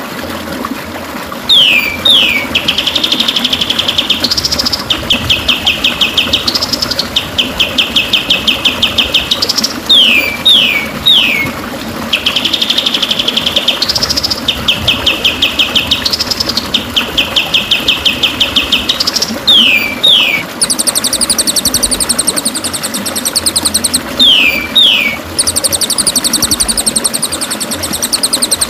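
White-rumped shama (murai batu) song used as a training recording. One phrase repeats: two or three quick falling whistles, then a fast rattling trill that ends in an upward note. About two-thirds of the way in, a higher, faster, buzzier trill takes over.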